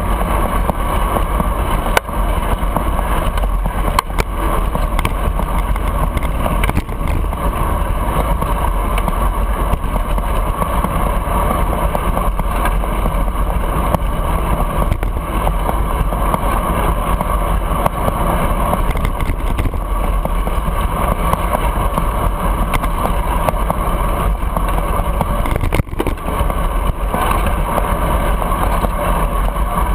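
Steady rush and rumble of riding a bicycle through city traffic, heard on a handlebar-mounted camera's microphone, with a few brief knocks.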